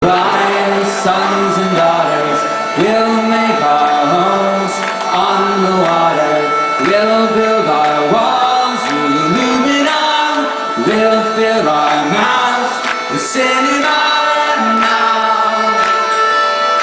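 Instrumental opening of a song: a melody with notes that slide up into pitch, over a steady high drone, with sharp percussion strikes.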